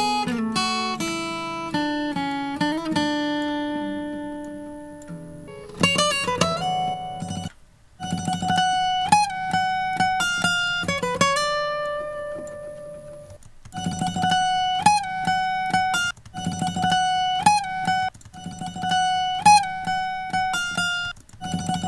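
Recorded guitar phrase played back in a loop: single plucked notes with slides between them. The short phrase starts over after brief breaks.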